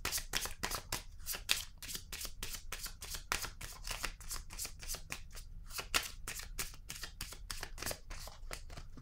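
A deck of tarot cards being shuffled by hand, a quick, even run of crisp card flicks, several a second.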